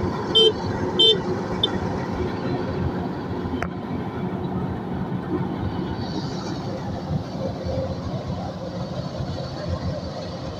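Kubota DC105X combine harvester's diesel engine and threshing machinery running steadily. An electronic warning beeper sounds about every 0.6 s for the first couple of seconds, then stops, and there is a single sharp click a little before four seconds in.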